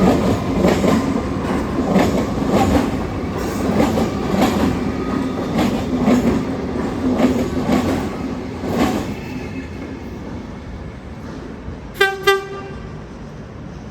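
V/Line VLocity diesel railcar set VL76 pulling out, its wheels clicking over rail joints about twice a second and fading as it moves away. About twelve seconds in, the train's low-note horn gives two short toots.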